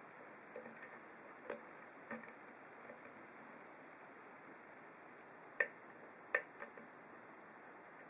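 Faint, scattered metallic clicks and ticks of a hook pick working the pins of an ASSA 2 padlock's 5-pin snowman core under a wire tension wrench. Two sharper clicks come about five and a half and six and a half seconds in.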